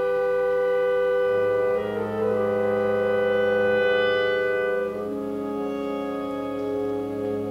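Contemporary chamber ensemble of winds and strings playing slow, sustained chords, with clarinets prominent. The chord shifts about two seconds in and again about five seconds in, where the music grows quieter.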